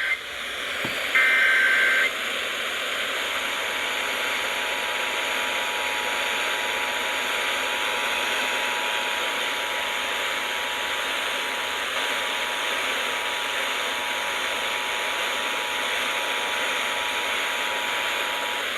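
Emergency Alert System signal received through a noisy radio channel. A one-second burst of the screeching data header comes about a second in and is the loudest moment. Then the two-tone attention signal is held steadily for about fifteen seconds over a hiss of static.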